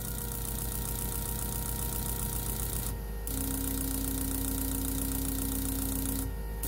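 Fuel injector test bench running Arctic Cat ZR 600 injectors during a spray pattern test: the injectors fire in a rapid, even ticking over the bench's steady hum. The sound breaks briefly about three seconds in and again near the end, and a second steady tone joins between the breaks.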